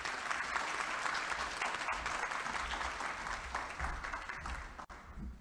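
Audience applauding, with the clapping tapering off near the end.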